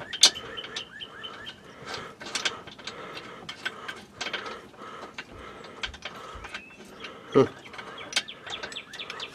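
Irregular small metallic clicks and taps of a bolt and brace hardware being worked into place by hand under a car, with a sharper click right at the start.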